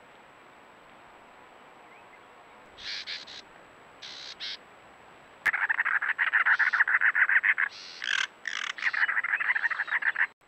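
Cactus wren singing: a long run of rapid, harsh, grating notes that starts suddenly about halfway through, with one short break, and is the loudest thing here. Before it, two short high bird calls over a faint hiss.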